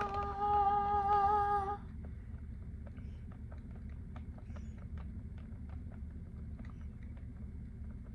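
A person humming one steady note for about two seconds, then small scattered clicks and taps from handling things over a steady low hum.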